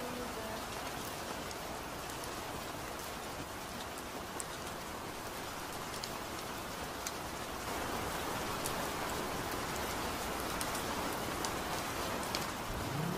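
Steady monsoon rain, with scattered sharp ticks of drops striking close by; it gets a little louder about eight seconds in.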